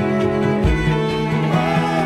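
Music with bowed strings over low bass notes.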